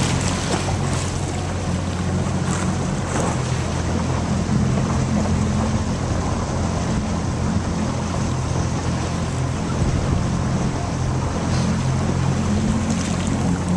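Wind buffeting the microphone over choppy water slapping and splashing, with a steady low rumble underneath.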